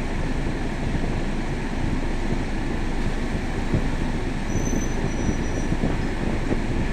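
Scania K320 bus heard from inside while driving: a steady low rumble of engine and road noise, with a faint high whine for about a second past the middle.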